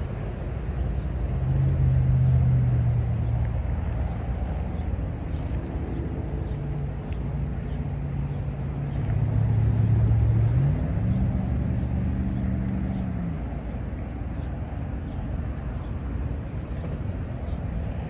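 An engine running steadily at a low hum, its pitch stepping up about ten seconds in and dropping back a few seconds later, over a steady low rumble.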